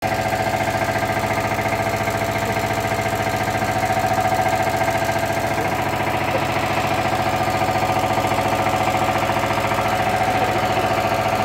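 Four-stroke diesel engine running steadily on a test bed, with a fast, even beat from its firing strokes and a steady hum.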